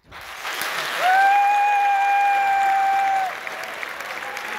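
Theatre audience applauding. About a second in, a loud, high tone with a slight upward slide at its start cuts through and is held steadily for about two seconds before stopping.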